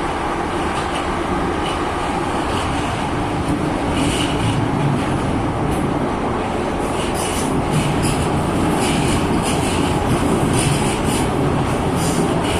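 Passenger train in motion, heard from inside the carriage: a steady rumble and rush of running noise.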